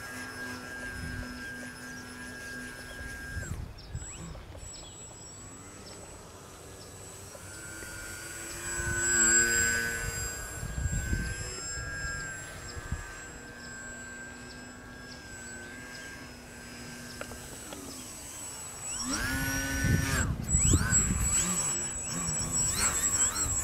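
Small radio-controlled aerobatic model plane's electric motor whining, its pitch rising and falling with throttle and cutting in and out. It is loudest as the plane passes close about nine seconds in and again around twenty seconds, with rushing noise on those passes.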